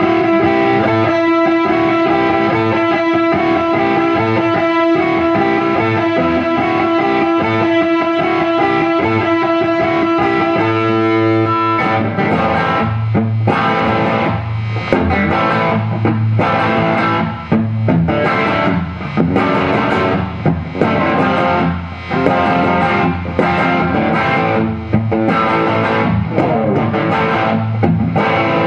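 Gibson DG-335 semi-hollow electric guitar with humbucking pickups being played: a chord held ringing for about the first eleven seconds, then choppy rhythmic chords with short breaks between them.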